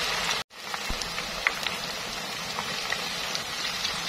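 Raw taro sticks deep-frying in hot oil over high heat, freshly added: a steady bubbling sizzle with small scattered pops. The sound drops out for a moment about half a second in.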